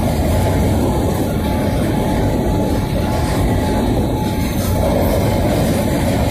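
Freight train of covered hopper cars rolling past close by: a steady rumble of steel wheels on rail, with a faint thin steady tone above it.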